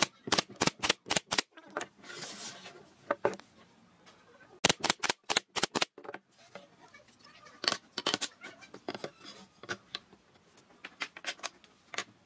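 Nail gun firing a quick run of about six brads into a pine trim strip, with a short hiss after it, then a second run of about six shots a few seconds later. Lighter knocks of wood being handled follow.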